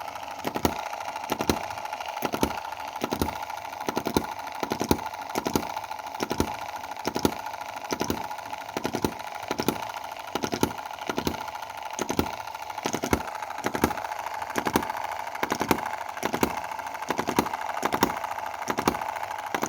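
Small model single-cylinder hit-and-miss gasoline engine running steadily, with regular knocks somewhat under two a second over a steady hum. It is missing on some fire cycles, skipping a firing between bangs, despite an adjustment to its valve timing.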